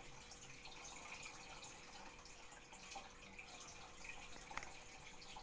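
Near silence: room tone with a faint steady hum and a few small, scattered clicks.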